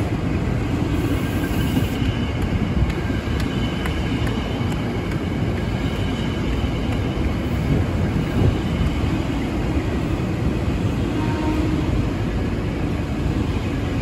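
Tokyo Metro 6000 series electric commuter train running past along the platform, a steady, even noise.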